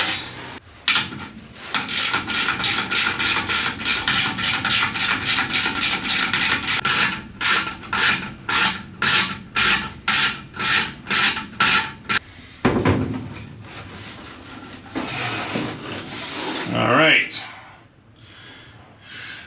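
Quick, even rasping strokes, about three a second for some ten seconds, as a nut is worked on to hold the aluminium fuel header tank in its mounting clamps. After that come a few softer scuffs and rustles.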